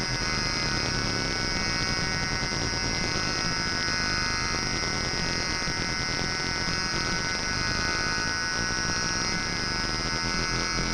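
Homemade 40106-based square-wave synthesizers holding a steady, dissonant drone: several high buzzing tones layered over hiss and a low rumble.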